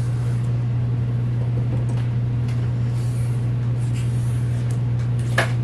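A motor's steady low hum, with one sharp click near the end.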